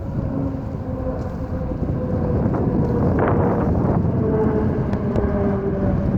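Low rumble of aircraft engines passing at an air show, a few faint tones drifting slowly down in pitch, with wind buffeting the microphone.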